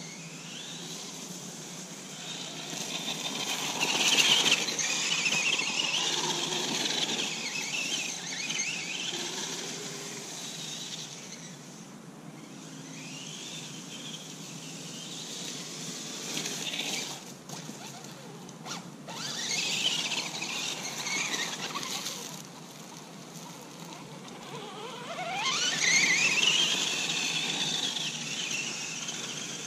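Axial RR10 Bomber, a 1/10-scale electric RC rock racer, driving: its motor and gears whine in repeated rising sweeps as it accelerates. The sweeps are loudest about four seconds in and again near the end, with quieter stretches between.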